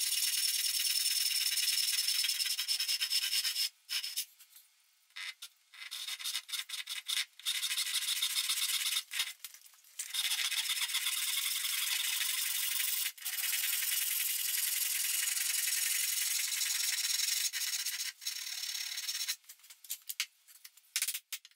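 Western handsaw cutting kerfs down into the edge of a pine board for a notch: a continuous rasping of saw strokes, broken by a few short pauses. It stops about two seconds before the end, leaving scattered small clicks and knocks.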